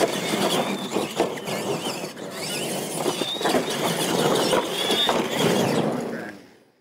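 Electric RC monster trucks racing on a dirt track: their motors and gearboxes whine up and down with the throttle over the noise of tyres on dirt. The sound fades out near the end.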